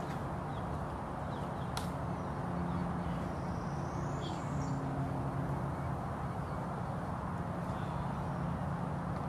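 Steady outdoor background noise with a low hum under it. There is a sharp click about two seconds in, and a short high bird call a couple of seconds later.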